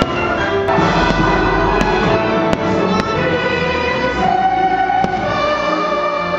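Orchestral fireworks-show music playing, with several sharp firework bangs cutting through it.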